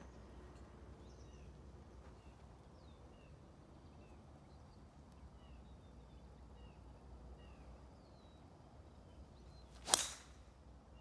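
A driver striking a golf ball off the tee: one sharp crack near the end. Faint bird chirps sound now and then over a quiet outdoor background.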